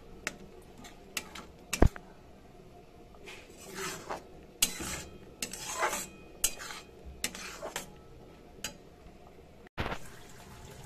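Steel spatula scraping and clinking against a metal kadai while stirring thick, wet paste, in irregular taps and scrapes with one louder clink about two seconds in.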